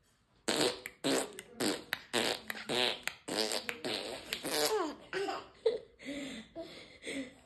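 A person's voice making a quick string of short non-word bursts, about two a second, each a brief buzzy or laughing sound rather than speech.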